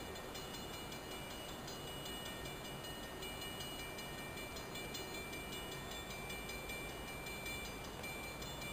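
Faint, steady diesel rumble of a distant EMD GP35R locomotive working along the line.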